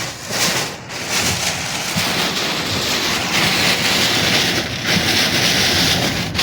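Storm wind and heavy rain beating against a car, heard from inside the cabin. It is a steady, loud hiss that grows stronger about halfway through.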